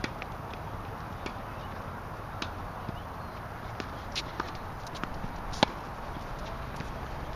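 Tennis balls being struck by rackets and bouncing on a hard court: a string of sharp pops at uneven intervals, the loudest about five and a half seconds in.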